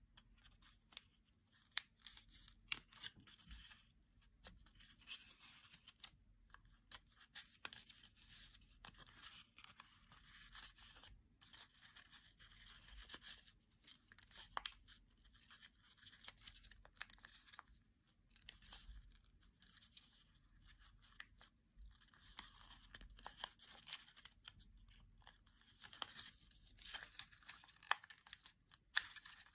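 A small square of origami paper rustling and crackling as fingers fold and crease it. Many faint, crisp snaps and rustles run close together throughout.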